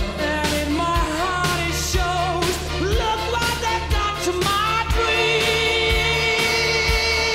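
Rock song with a sung melody over a steady drum beat; the singer holds one long note from about five seconds in.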